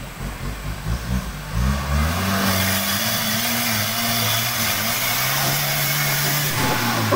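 Off-road 4x4 truck engine revving up about a second and a half in and held at high revs under load, with a loud rushing hiss over the middle part.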